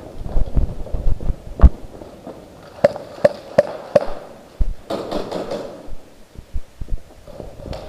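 Airsoft pistol firing: four shots about a third of a second apart, then a quick cluster of rapid cracks a second later, over low irregular thumps and knocks.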